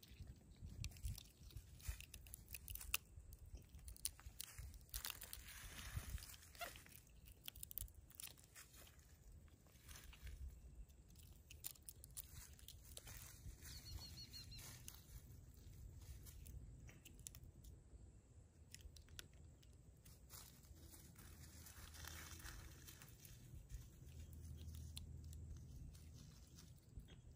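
Capuchin monkey biting and tearing at a pine cone: faint, irregular crunches and snaps of the cone's woody scales, busiest in the first half.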